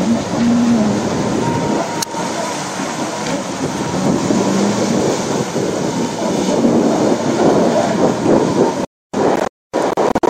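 Jet ski engines running, with a steady loud rumble and rushing water, and a low hum that wavers in pitch now and then. Near the end the sound cuts out abruptly several times.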